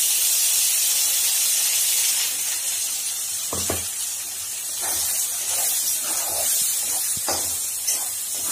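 Wet ground masala paste sizzling in hot oil in a pan, a loud steady hiss. From about halfway, a spoon stirs it, knocking against the pan several times.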